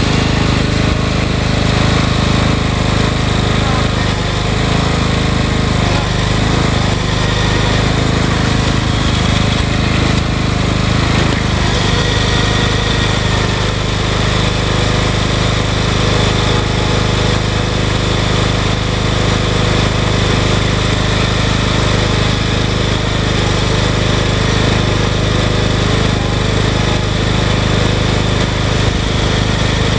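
Lawn mower engine running loud and steady, without a change in speed.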